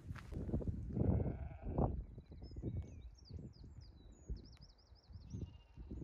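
A sheep bleats once about a second in. Then a small bird gives high chirps and a quick up-and-down trill, over a low outdoor rumble.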